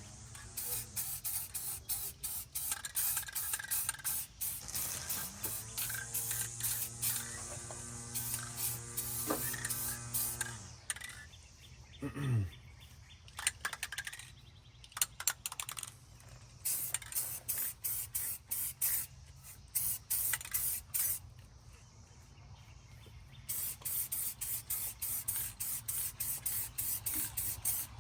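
Aerosol spray-paint can spraying an engine's cylinder head in rapid short bursts, with stretches of steadier hiss. A humming tone comes in from about five to ten seconds in, and a short falling tone follows soon after.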